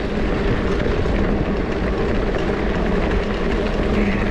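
Steady rumble of a fat-tire e-bike rolling over a bumpy gravel trail, tyre noise mixed with wind buffeting the microphone.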